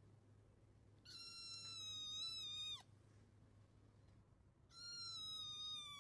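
Kitten meowing: two long, high-pitched meows a couple of seconds apart, each dropping in pitch as it ends.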